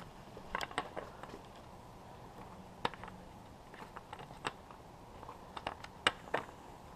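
Light, irregular clicks and taps of hand work on the bare powerhead of a 40 hp Yamaha outboard, about a dozen small sharp ticks spread out, the sharpest near the end.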